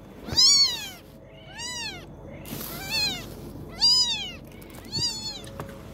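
Newborn kitten mewing repeatedly: five high-pitched calls about a second apart, each rising and then falling in pitch.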